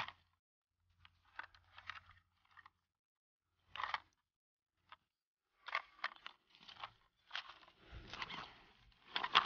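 Faint, scattered crunches and rustles of handling: a flexible fish measuring board being unfolded and pressed flat on gravelly ground, in short clusters.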